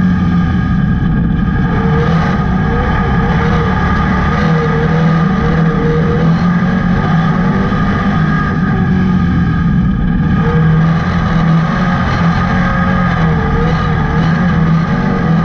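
Dirt-track stock car's engine running hard at high revs, heard from inside the cockpit, its pitch wavering slightly.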